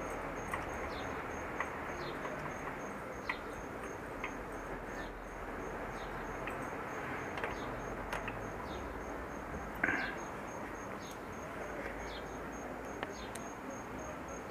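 Cricket chirping steadily in high, evenly spaced pulses, with scattered light clicks and a louder knock about ten seconds in.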